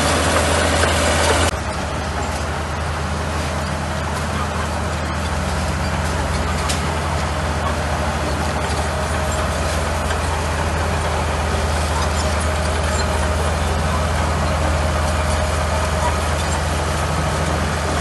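Crawler bulldozer's heavy diesel engine running steadily as it pushes dirt and gravel. About a second and a half in, the sound drops a little.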